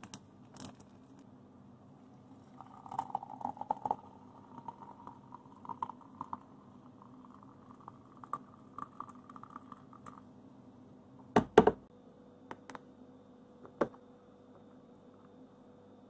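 Hot water poured from a kettle into a ceramic mug, with a gurgling pitch that rises slightly as it goes, for about seven seconds. Then two loud knocks come about two-thirds of the way in, followed by a few lighter clicks.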